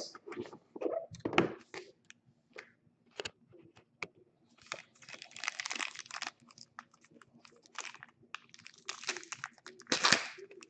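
A dark foil trading-card pack wrapper being torn open and crinkled by hand: irregular crinkling and tearing with scattered small clicks, loudest a little past the middle and again near the end.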